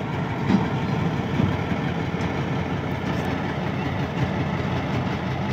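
Pakistan Railways GMCU-15 diesel-electric locomotive running steadily at low power while shunting, with a faint knock or two in the first couple of seconds.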